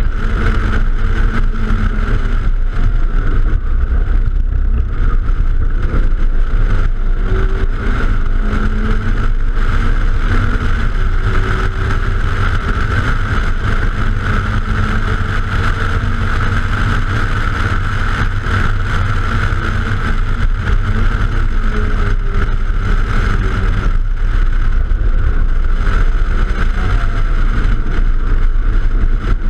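Silver hatchback at speed on a race track, heard from a camera mounted outside the car: a heavy, steady rush of wind and road rumble, with the engine note faintly rising and falling through the gears underneath.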